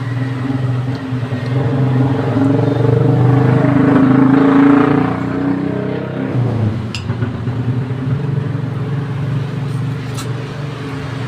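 Road traffic: a motor vehicle's engine passing close by, growing to its loudest about four to five seconds in and then fading, with other traffic continuing behind it.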